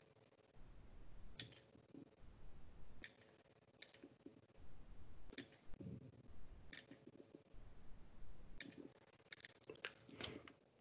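Faint computer mouse clicks, single and in quick pairs, every second or so.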